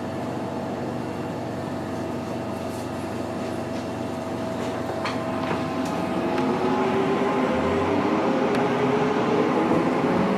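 Inside an MTR M-train electric multiple unit car. A steady running hum with a faint steady tone is heard at first. From about six seconds in, a motor whine rises in pitch and grows louder as the train picks up speed.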